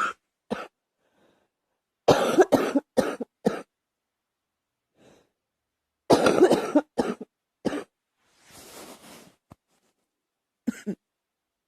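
A girl coughing in fits: a couple of single coughs at the start, a run of several coughs about two seconds in, another run about six seconds in, and a short cough near the end.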